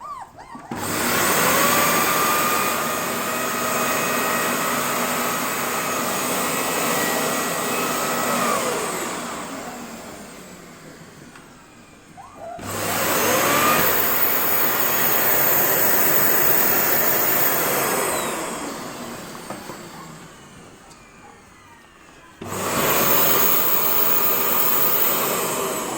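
Vacuum cleaner switched on three times, starting abruptly each time with a steady whining run. After the first two starts it winds down over a few seconds before being switched on again.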